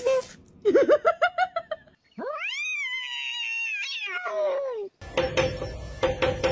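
A cat meowing: a quick run of short chirping calls, then one long drawn-out meow of nearly three seconds that rises, holds and falls away. About five seconds in, a rapid series of rattling knocks starts over a steady tone.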